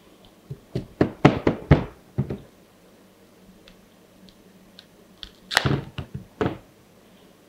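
Kitchen knife cutting peeled yam and striking a plastic cutting board: a quick run of six or seven sharp knocks about a second in, then a short scrape and a few more knocks near the end.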